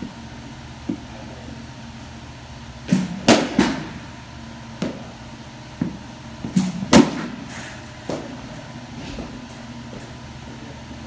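Softball bat hitting softballs: two sharp hits, about three and seven seconds in, each with a second knock close after, and a few lighter knocks between, over a steady low hum.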